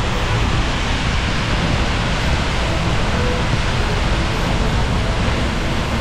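A tall waterfall heard close up from behind its falling curtain of water, a steady, even rush of water plunging into the pool below.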